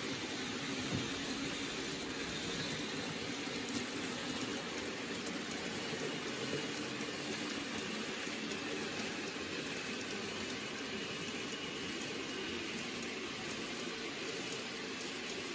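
N gauge model trains running on the layout: a steady whirring rolling noise with faint, irregular ticks.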